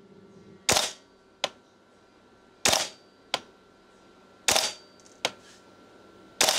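VFC Colt M16A2 gas blowback airsoft rifle on green gas firing single shots: four sharp reports about two seconds apart. Each report is followed a moment later by a shorter, quieter click.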